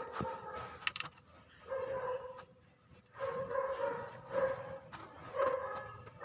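A dog barking and whining in about four pitched bouts, with a few sharp clicks in between.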